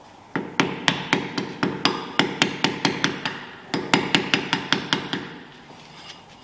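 Hammer tapping a screwdriver against the wheel-bearing dust cap on the rear drum hub of a VW Scirocco Mk2, driving it off: quick taps at about five a second, in two runs with a brief pause about halfway.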